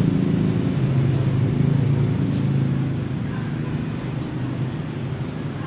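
Street traffic: a motor vehicle's engine running with a steady low hum that slowly fades.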